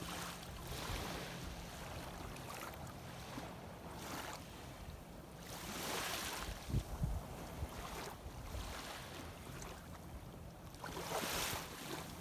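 Shallow seawater sloshing and washing in slow surges that come and go every few seconds.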